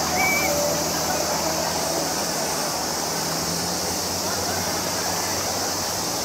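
Steady outdoor ambience: an even, high hiss with faint distant voices near the start.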